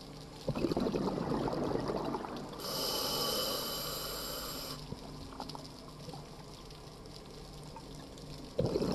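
Scuba diver breathing through a regulator underwater: a gurgling rush of exhaled bubbles, then a steady hiss of inhalation lasting about two seconds, and the bubbling rush again near the end.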